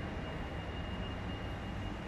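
Steady city background noise: a low rumble of distant traffic with a faint steady high whine above it.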